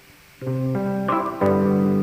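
Background music of plucked guitar notes, starting up again about half a second in after a brief pause.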